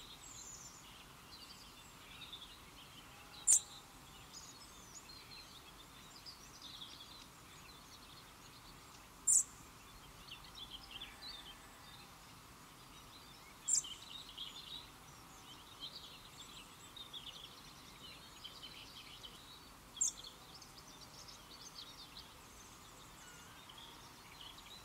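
Small birds singing and chirping over a faint steady hiss of open-air background. Four short, sharp, louder high notes stand out several seconds apart.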